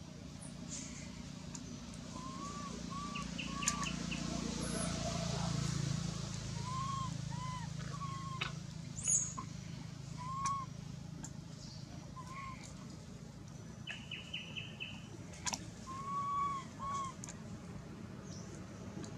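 Birds calling: short arched whistled notes, often in twos or threes, with a couple of quick chirping trills, over a steady low background rumble.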